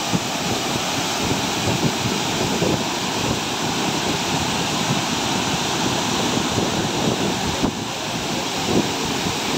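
Waterfall: a steady rush of white water pouring and splashing over rock.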